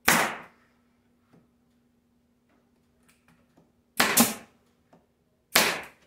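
Pneumatic nail gun firing staples into a wooden hive bottom-board frame: one sharp shot with a short hiss of air at the start, a quick pair about four seconds in, and one more near the end.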